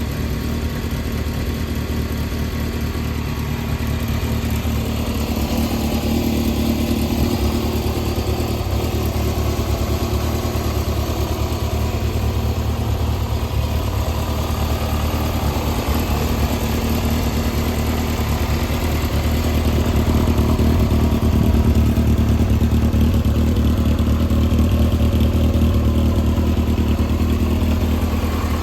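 Yamaha XJR400R2's air-cooled inline-four engine idling steadily, a little louder for a stretch in the second half. The seller describes it as running well, with no abnormal noise.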